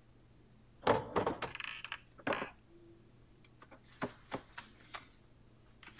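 A few sharp wooden knocks and clicks, a cluster about a second in and another just past two seconds, then scattered lighter taps, over a faint steady hum.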